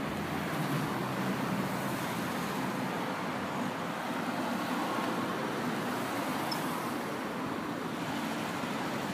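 Steady hum of distant city traffic, an even wash of road noise with no single vehicle standing out.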